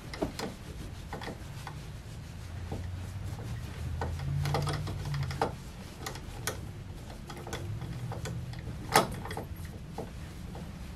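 Towel rubbing a small wet dog's coat dry, with scattered light clicks and knocks and one sharper knock about nine seconds in, over a low hum.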